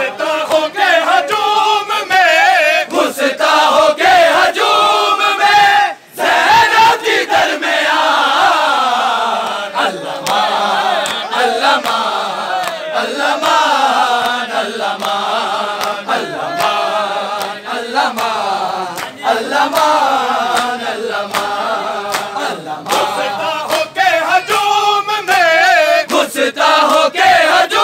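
Large crowd of men chanting a Shia noha lament together in unison, loud and continuous, with sharp hand slaps of chest-beating (matam) cutting through the chant.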